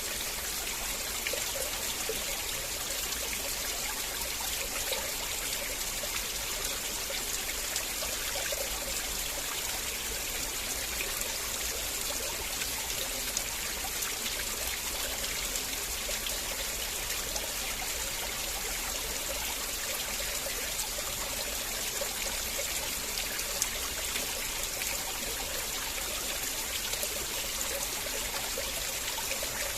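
River water flowing and trickling, a steady even rush without change.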